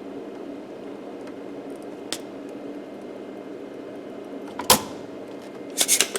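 Steady hum of bench equipment, with sharp clicks and knocks of tools and the circuit board being handled during desoldering: one click about two seconds in, a louder knock later, and several clicks in quick succession near the end.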